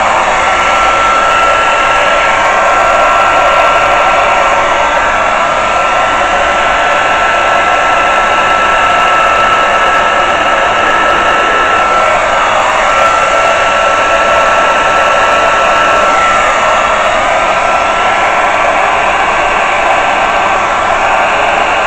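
Hand-held hair dryer running steadily, a loud rush of air with a thin high whine from its motor that falters briefly a couple of times in the second half.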